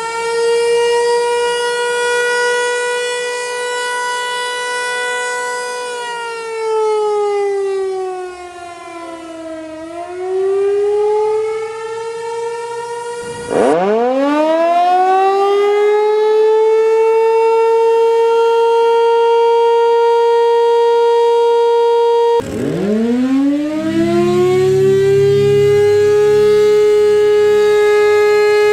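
Outdoor warning sirens wailing, one after another. The first holds a steady wail, slides down in pitch and partly back up. It cuts off abruptly about halfway through, and a second siren winds up from a low growl to a steady wail. About three-quarters of the way in, a third siren winds up the same way.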